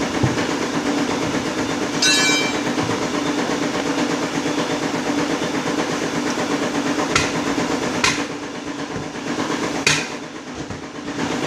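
A motor running steadily with a low hum, a brief high squeal about two seconds in, and a few sharp knocks in the second half.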